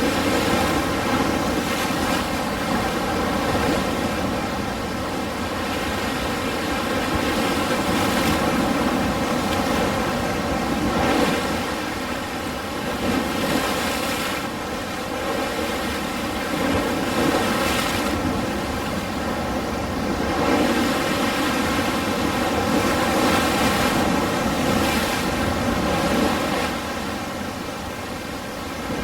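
Ocean surf: a continuous rush of waves washing in, swelling and easing every few seconds.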